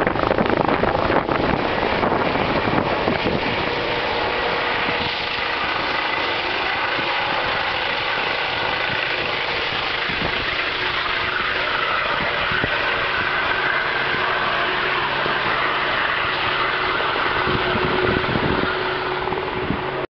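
Rescue helicopter's rotor and turbine engine running steadily overhead, with a steady whine over the rotor noise. Wind buffets the microphone in the first second or so.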